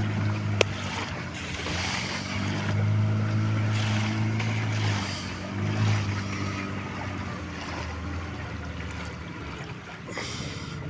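A fishing boat's engine running steadily over the sound of waves and wind on open water, the engine hum dropping away after about six seconds. A single sharp click about half a second in.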